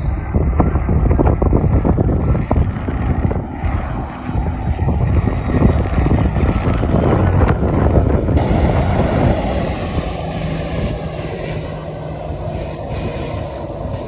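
Wind buffeting the microphone in strong gusts over the sound of an airplane's engines, which become a steadier, fuller noise about halfway through.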